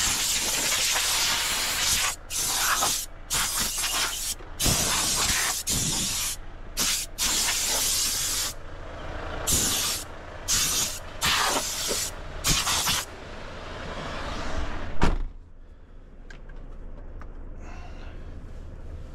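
Compressed-air blow gun hissing in repeated bursts of one to two seconds, dusting out a truck cab's floor and door step; the blowing stops about thirteen seconds in. A single sharp thump follows about two seconds later, the loudest sound here.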